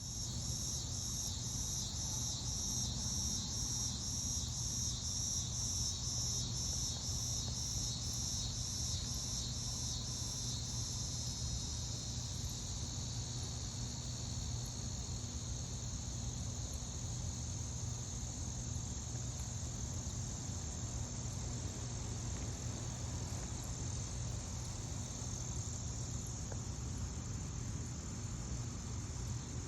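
Insects chirping in a high, steady chorus that pulses about twice a second for the first ten seconds or so, then runs on as a continuous trill, over a low steady rumble.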